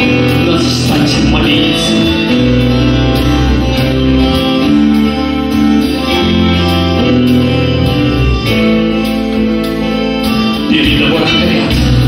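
A live rock band with guitars, drums and accordion playing a slow song: held chords over a steady bass line, with drum and cymbal hits.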